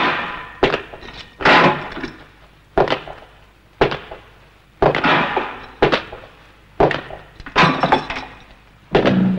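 Sound effects of sharp knocks, about one a second, several of them spilling into a brief glassy crash like breaking. Near the end a low musical tone comes in.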